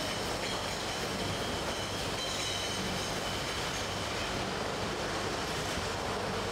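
Steady machinery noise of a bottling-line palletiser and roller conveyors running: a continuous rumble with a low hum and faint high whining tones.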